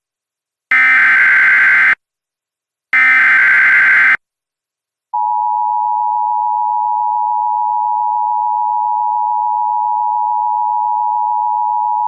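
Emergency Alert System SAME header: the last two of three data bursts, each about a second long with a second's gap between them. About five seconds in, the EAS two-tone attention signal (853 and 960 Hz sounded together) starts and holds steadily, announcing an emergency alert.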